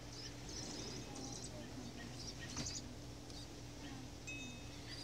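Small birds chirping in short high clusters: a run of chirps about a second in, another near the middle and a few near the end, as a fledgling is fed by its parent. A steady low hum runs underneath.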